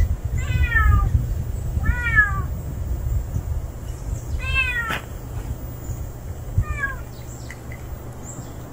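Domestic stray cat meowing four times, each meow falling in pitch, the last one fainter, over a low rumble.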